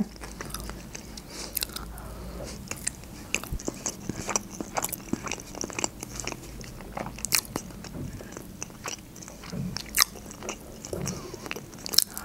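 Close-up chewing of sushi rolls: irregular soft mouth clicks and smacks as a mouthful is chewed, with another roll bitten into near the end.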